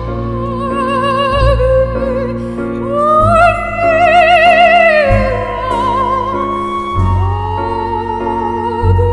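Female classical soprano singing with wide vibrato over an instrumental accompaniment with deep sustained bass notes. She climbs to a long high note about three seconds in, then sinks to lower held notes.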